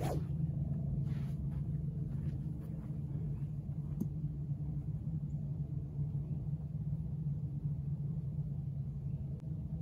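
A golf club swishing through a practice swing right at the start, over a steady low rumble, with one faint tick about four seconds in.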